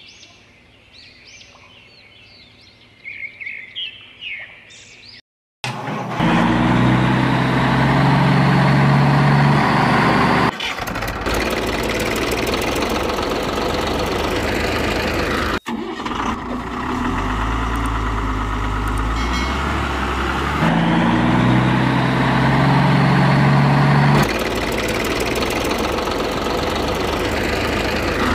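Birds chirping faintly over quiet outdoor air for the first few seconds. After a brief cut to silence, a loud motor-vehicle engine sound effect starts and runs to the end, stepping up in pitch in stages as if revving, in passages that repeat like a loop.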